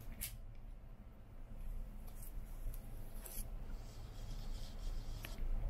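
Faint rubbing and handling noises, with about four sharp clicks spread through and a soft hiss in the second half, over a low steady hum.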